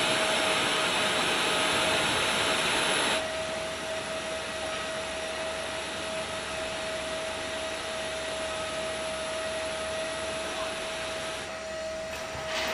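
Steady high whine over a rushing hiss from aircraft turbine equipment running on the flight line. The hiss drops in level about three seconds in while the whine holds.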